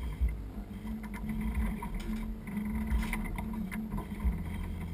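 Steady rushing of wind and water aboard a sailboat at sea, with a low rumble of wind on the microphone and a few faint knocks.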